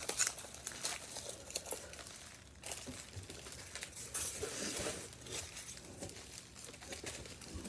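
Foam packing peanuts and a cardboard box being handled: irregular crinkling and rustling with many small clicks and light knocks.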